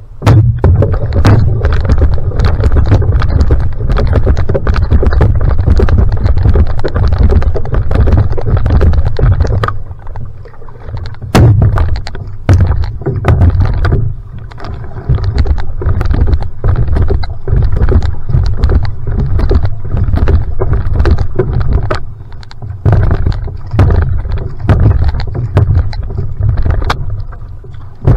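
Single outrigger (va'a) canoe under sprint paddling: repeated splashes and knocks of the paddle blade catching the water and water slapping the hull, over a heavy low rumble of wind on the bow-mounted microphone.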